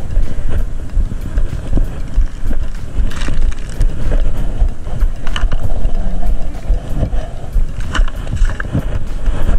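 Wind rumbling and buffeting on an action-camera microphone, with scattered knocks and rustles from handling and steps.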